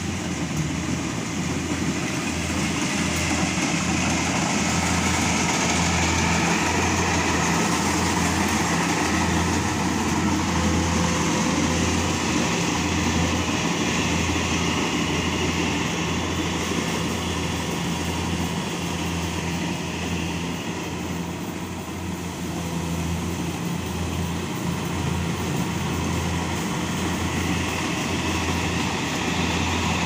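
Kubota rice combine harvester running while it harvests, its diesel engine and threshing works making a steady, loud mechanical din over a pulsing low hum.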